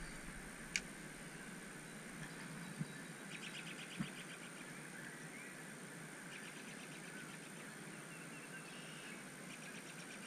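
Faint outdoor river ambience: a steady hiss with small birds trilling in short runs several times. A sharp click comes about a second in, and two soft low bumps follow around three and four seconds in.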